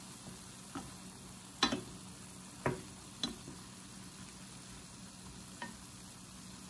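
Wooden spoon stirring ground beef, onions and tomatoes in a stainless steel pan, knocking against the pan five times at uneven intervals, over a steady sizzle of the meat frying without oil.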